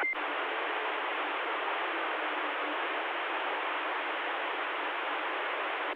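CB radio receiver hissing with steady static between transmissions, opening with a sharp click and a short high beep as the previous transmission drops off.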